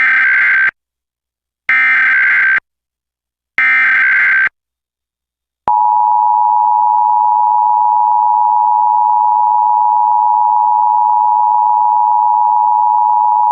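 Emergency Alert System header: three short bursts of SAME digital data tones, each under a second and about a second apart. Then comes the EAS attention signal, a steady two-tone sound held for about eight seconds. Together they mark the start of the nationwide test alert.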